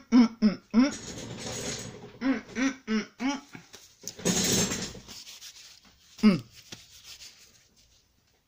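A woman's voice making short muffled syllables and breathy puffs, mumbling with her mouth full of marshmallows. The voice comes in brief clusters, with two longer breathy stretches in between.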